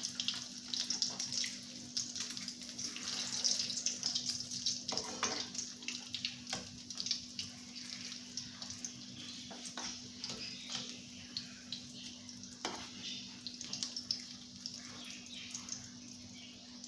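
Potato kababs sizzling and crackling in hot oil in a frying pan, the sizzle easing a little in the second half. A slotted spoon clicks against the pan a few times as the kababs are turned, over a steady low hum.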